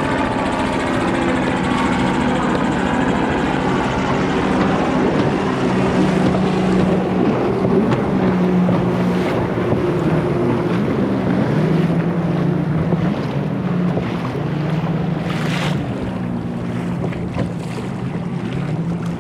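Jet ski engines running, their hum shifting in pitch as the craft move about, over wind and water noise.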